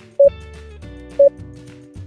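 Background music with a short, loud beep about once a second, the tick of a countdown timer; two beeps sound in these two seconds.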